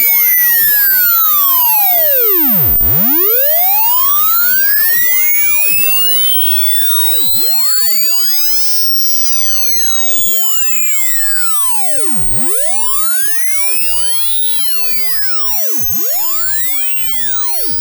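Electronic hearing-test sine tone, a single pure pitch sweeping slowly upward through the high range. It becomes somewhat quieter about five seconds in.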